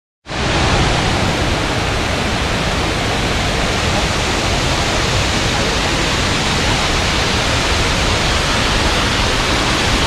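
Wachirathan Waterfall's water falling onto rock: a steady, loud rush of noise that cuts in a moment in and holds even throughout.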